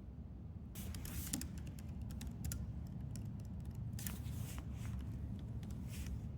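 Light clicks and brief rustling swishes from small objects being handled, in a few clusters, over a low steady hum.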